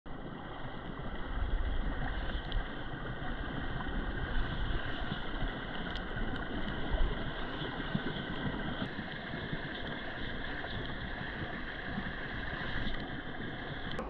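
Steady rushing of a clear mountain stream's flowing water, with a low rumble and a few faint clicks and knocks.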